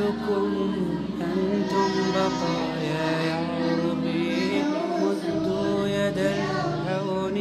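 A song with a singing voice over instrumental backing. The bass notes change every two seconds or so.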